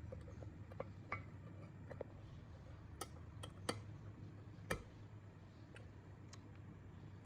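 Light, sharp clicks and taps of small parts and hand tools being handled, about nine at irregular spacing, over a faint steady low hum.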